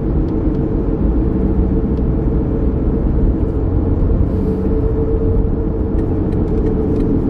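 Steady rumble of road and engine noise heard inside a moving car's cabin.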